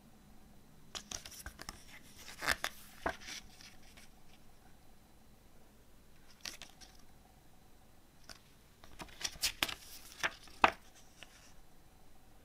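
Pages of a paper CD booklet being turned by hand: two spells of paper rustling with sharp snaps, the first about one to three seconds in and the second around nine to eleven seconds.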